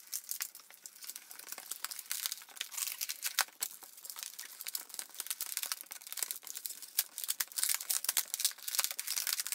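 A thin 160 latex twisting balloon being twisted and squeezed by hand, giving a dense, irregular run of rubbery rubbing and crinkling noises.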